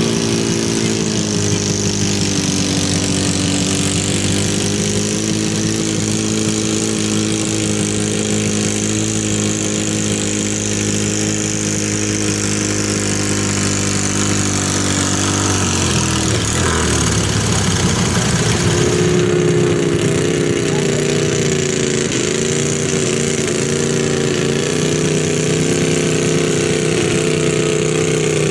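A red International Harvester garden tractor's engine runs steadily under load as it pulls a weight-transfer sled. Its note falls away and breaks off about fifteen seconds in as the pull ends. A few seconds later another garden tractor's engine takes over, running steadily at a higher pitch.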